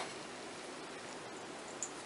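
Faint rustling of crumbly bath bomb powder as hands scoop it from a stainless steel bowl and pack it into a mold half, with a light click near the end.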